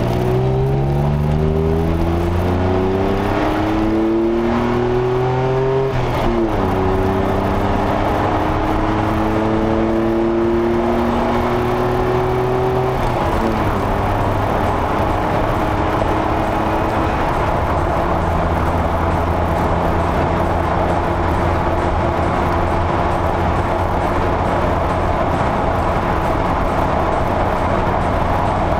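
DeLorean DMC-12's 2.85-litre PRV V6 through a stainless free-flow exhaust, heard from inside the cabin as the car accelerates up through the gears. The engine note rises steadily, drops at a gear change about six seconds in, climbs again, and drops once more about thirteen seconds in. It then settles to a steady cruise under road and wind noise.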